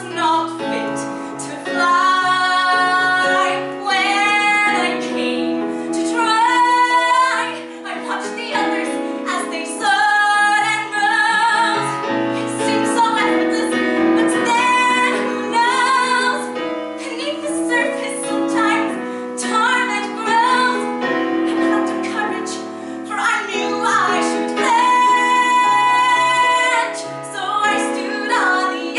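A woman singing solo to piano accompaniment, with vibrato and several long held notes.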